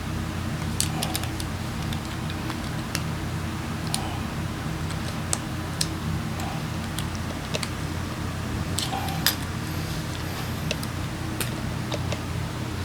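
A steady low mechanical hum with light, scattered clicks and taps, like small metal parts or tools being handled.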